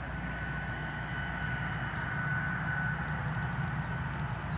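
Steady outdoor background of low rumble, with a short high trill repeating about every two seconds.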